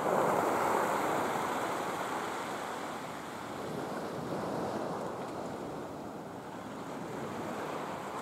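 Sea waves washing at the harbour breakwater, a steady rushing hiss that swells loudest in the first second and then rises and falls gently, with some wind on the microphone.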